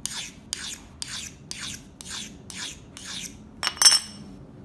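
Steel leather punch being rubbed against an oiled sharpening stone in short, even rasping strokes, about two a second, honing the edge and clearing burrs. Near the end the strokes stop and there is one sharp, ringing metallic clink.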